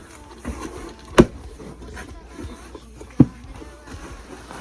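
A large cardboard shipping box being handled and opened: two sharp knocks about two seconds apart, with softer taps and faint rustling between.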